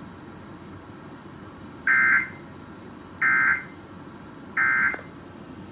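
Emergency Alert System end-of-message data tones: three short, identical bursts of digital squawk about 1.3 seconds apart, over a faint steady hiss. They mark the end of the broadcast alert.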